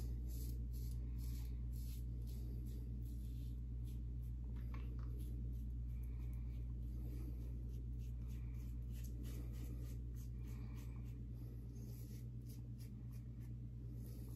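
Double-edge safety razor with a Nacet blade scraping through lathered stubble in a run of short, irregular strokes. A steady low hum runs underneath.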